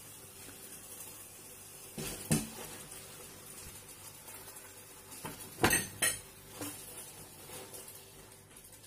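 Cooking utensils knocking and clinking against a pan as drained spaghetti is tipped into tomato sauce and mixed. There are a few sharp knocks about two seconds in, then a second cluster of four around the middle.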